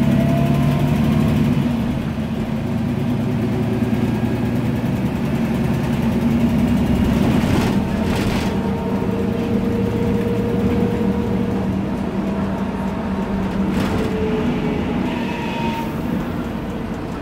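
Inside a MAN Lion's Classic city bus: its turbocharged CNG MAN E2876 engine running under way, with a thin whine from the ZF Ecomat 6-speed automatic gearbox sliding in pitch. A short rush of noise comes twice, about 8 and 14 seconds in.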